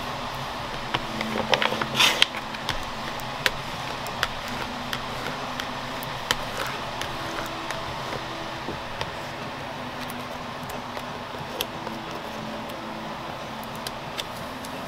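A plastic card scraping and rubbing over vinyl transfer tape on a laptop lid to press a vinyl decal down, with a loud scrape about two seconds in and scattered light clicks and crackles of the tape after it. A steady hum runs underneath.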